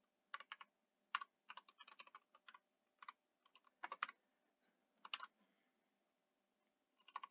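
Faint, irregular keystrokes on a computer keyboard, typed in small bursts.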